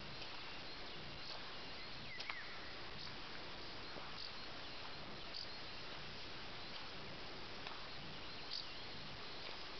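Quiet rural outdoor ambience: a steady hiss with faint, short high-pitched chirps every second or so.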